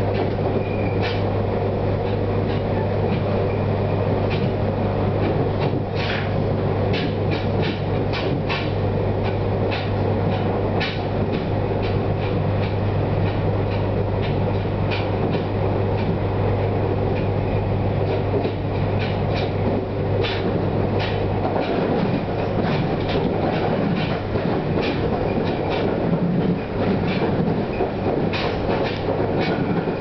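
Passenger train running, heard from inside the carriage: a steady rumble and low hum, with the wheels clicking irregularly over rail joints. The hum drops away about two-thirds of the way through.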